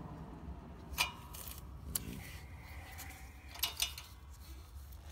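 A few sharp metallic clicks, about one second in, near two seconds and a close pair near the end, from a hydraulic shop press and homemade driver pressing a new tapered wrist pin bushing into a Cummins 4BT connecting rod. A low steady hum runs underneath.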